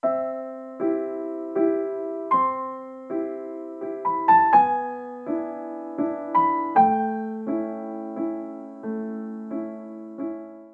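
Gentle piano music: soft notes and chords struck at a slow, even pace, each left to ring and decay, dying away near the end.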